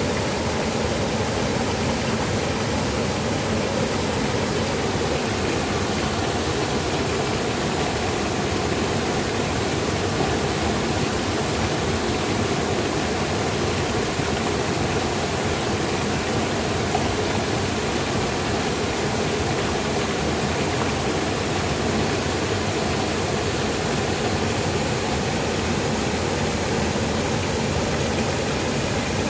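Small waterfall pouring into a pool: a steady rush of falling water.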